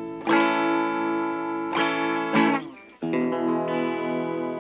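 Telecaster electric guitar strummed four times, each chord ringing on, the last from about three seconds in, while the newly wired controls are tested; its tone knob has no effect on the sound.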